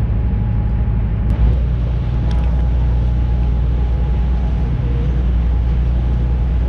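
Boat engine running steadily under way, a low drone with the rush of wind and water over it, and a brief click about a second and a half in.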